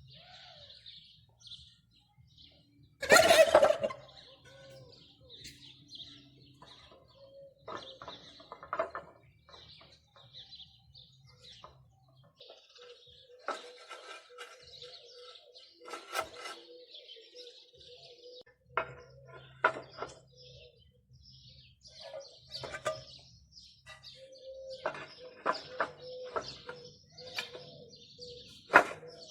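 Birds chirping with short, repeated high calls, and scattered clicks and knocks. One loud, brief sound comes about three seconds in.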